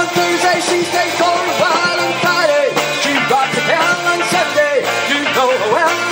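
Live band playing a funk and indie-rock song: a male singer's voice into a microphone over electric guitars and a drum kit.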